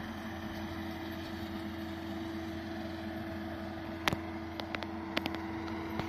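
RK55 tractor pulling a Case 3450 square baler, running with a steady engine hum. A few sharp clicks come in the second half.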